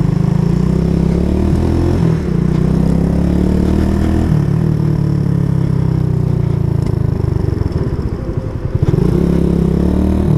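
Suzuki GN125's single-cylinder four-stroke engine running under way. Its pitch shifts with throttle and gear changes about two and four seconds in, then dips and rises again near the end.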